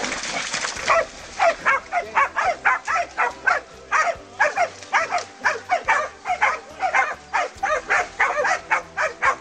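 Hunting dogs barking in quick, sharp yelps, about three a second, at a cornered wild boar. A rushing scuffle noise comes just before the barking starts.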